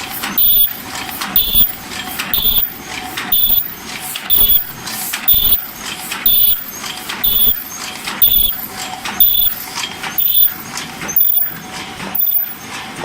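Ultrasonic-sealing paper cup forming machine running on 12 oz cups, a mechanical cycle repeating evenly about once a second, each cycle with a loud knock and a brief high-pitched tone.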